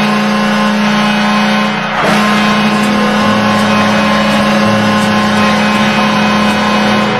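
Washington Capitals' arena goal horn sounding: a loud, steady deep blast that breaks off briefly about two seconds in, then a second long held blast.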